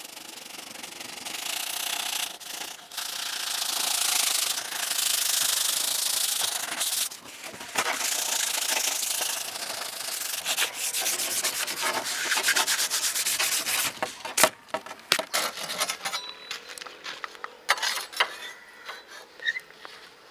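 Sandpaper and sand scrubbing over the rusty steel blade of a crosscut saw, a gritty rasping with a few short breaks between strokes. About fourteen seconds in the scrubbing stops and gives way to scattered clicks and knocks.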